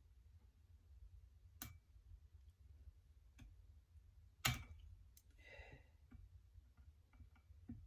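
A few sharp, isolated metallic clicks and taps over near silence, the loudest about four and a half seconds in, from a snap ring and small tool being worked into place by hand on a rifle chassis buttstock.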